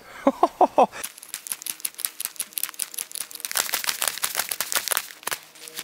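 Pocket knife blade whittling a stick of hard wood into a wedge: a rapid run of short, crisp scraping cuts. It is preceded by a few short vocal sounds in the first second.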